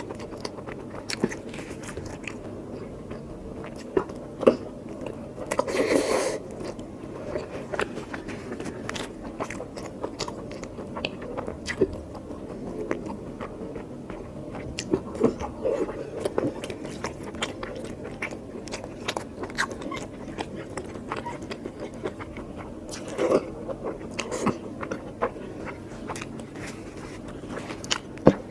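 Close-miked chewing and biting by a person eating curry with rice: many small wet clicks and smacks of the mouth, with a louder, noisier bite about six seconds in and again near the twenty-three-second mark.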